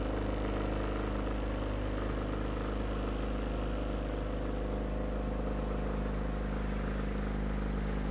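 Small wooden tour boat's engine running steadily under way, with the wash of water along the hull.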